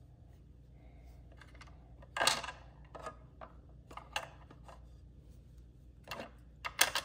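Small plastic toy drinks clicking and clattering against the shelves of a plastic toy refrigerator as they are put in, a handful of irregular clicks, loudest about two seconds in and just before the end.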